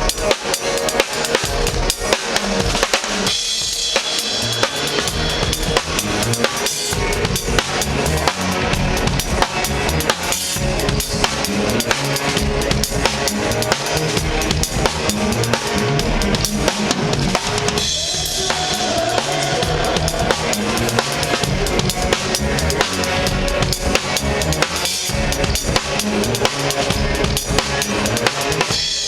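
A drum kit played continuously, with bass drum and snare strikes in a dense rhythm.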